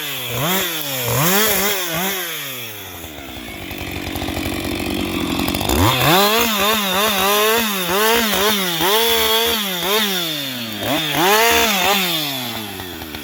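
Husqvarna 560XP two-stroke chainsaw with its throttle worked on and off, the engine pitch rising and falling about once a second. The revving eases to lower, steadier running for a few seconds in the middle, then picks up again.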